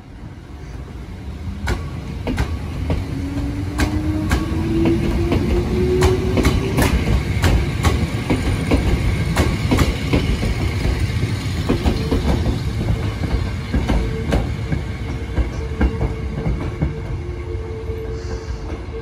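Hakone Tozan Railway 2000-series electric train pulling out of a station: its motor hum rises in pitch for a few seconds as it gets going, while the wheels click sharply and repeatedly over rail joints and points as the cars pass. A steady hum takes over near the end.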